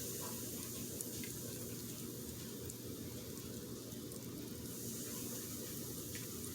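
Faint steady fizzing of a baking-soda volcano reacting with citric acid solution, with tiny pops now and then as carbon dioxide bubbles burst.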